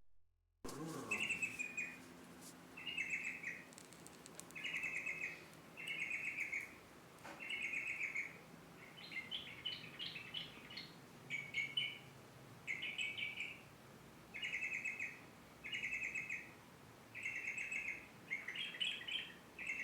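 Cucak trucuk (yellow-vented bulbul) singing: short bubbly chattering phrases, each under a second, repeated about every one and a half seconds, more than a dozen in all.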